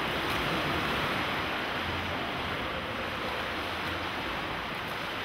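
Steady wash of splashing water in an indoor swimming pool.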